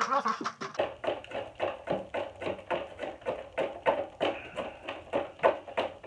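A wooden stick knocking and scraping inside a vacuum cleaner's dust container, in rapid repeated strokes of about four a second, to break loose dried, caked-on dirt.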